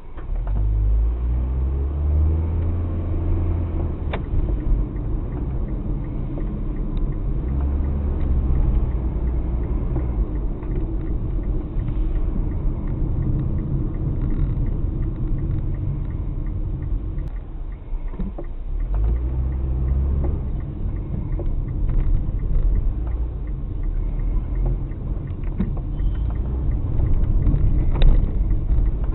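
Car driving, with a steady low engine and road rumble that starts abruptly. The engine note rises as the car accelerates over the first couple of seconds.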